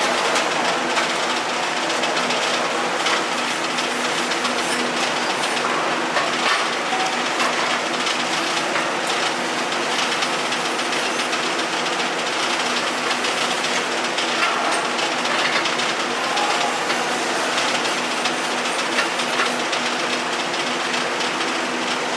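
Electric arc welding: a steady crackling, sputtering arc over the constant hum of the welding machine.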